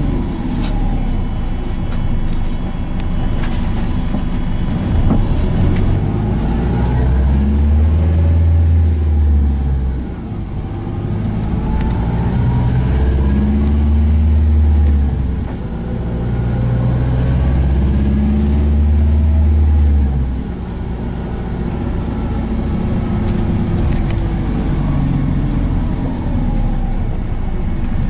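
Inside a moving Volvo B5LH hybrid double-decker bus: steady running and road rumble, with a low engine drone that swells three times for a few seconds each, about a quarter, half and two-thirds of the way in, and whines that rise and fall in pitch with the bus's speed.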